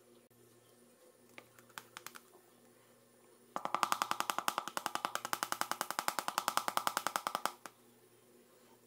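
Plastic sieve shaken over a bowl to sift flour, knocking in a fast even rhythm of about ten knocks a second for about four seconds, starting a few seconds in, after a few light taps.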